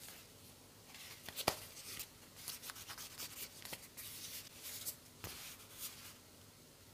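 Hands handling and flexing a worn leather wallet: quiet rubbing and rustling of the leather with scattered small clicks, starting about a second in and stopping shortly before the end.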